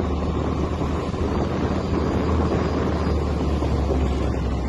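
Wind blowing across the microphone on a patrol boat under way, over a steady low drone and the rush of water from the moving boat.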